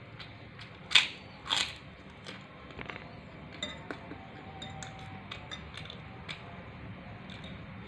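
Cutlery clicking and clinking against a plate during a meal, with two short louder noisy sounds about a second in, over a low steady hum.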